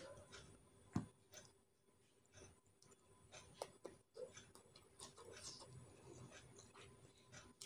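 Faint eating sounds: scattered soft clicks of chewing and cutlery, with one louder knock about a second in.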